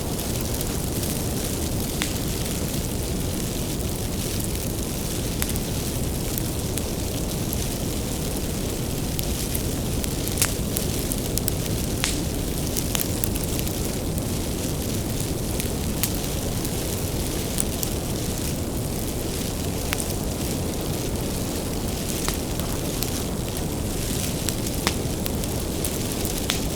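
Bonfire of firewood burning with a steady low rumble and irregular sharp crackles and pops, a few louder snaps scattered through.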